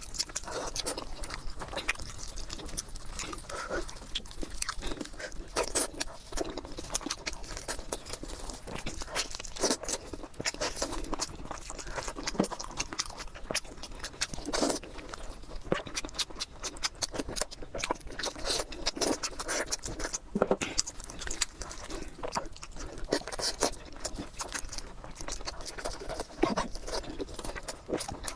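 Close-up eating sounds of a person chewing pork knuckle: irregular wet clicks, smacks and small crunches that keep going with no pauses.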